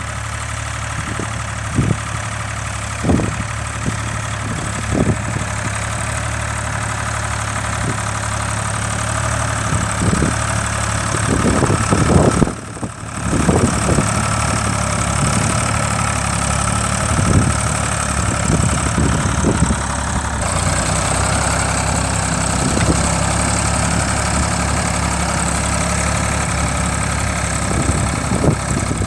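Tractor engine running steadily, with irregular low thumps and a brief drop in level a little under halfway through.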